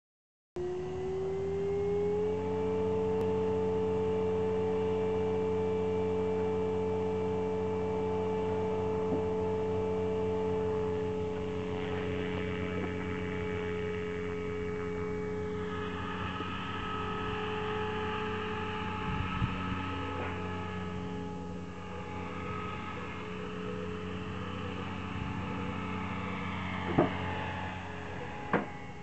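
Align T-Rex 500 electric RC helicopter's motor and rotor whine. It rises slightly in pitch over the first couple of seconds, then holds steady, and after about ten seconds it turns noisier and wavers as the helicopter flies. Two sharp clicks come near the end.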